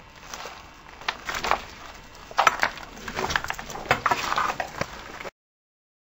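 Close-up handling noise: a run of clicks, knocks and rustles that cuts off abruptly a little after five seconds.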